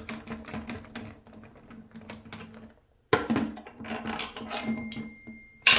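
Screwdriver turning out a plastic toilet-seat hinge bolt: a rapid run of small clicks, a short pause about three seconds in, more clicking, then one louder knock near the end.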